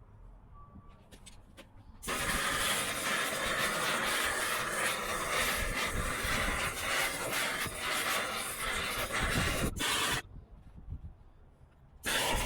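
Gas torch running with a loud, steady rushing flame as scrap silver is melted for casting; it starts suddenly about two seconds in, cuts off after about eight seconds, and comes back briefly near the end.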